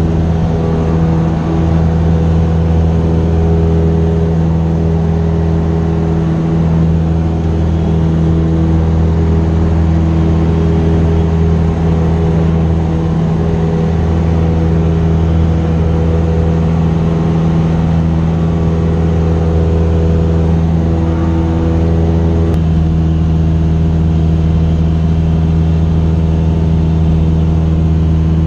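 Cessna 172S's four-cylinder Lycoming engine and propeller droning steadily in flight, an even hum, with a slight shift in tone about 22 seconds in.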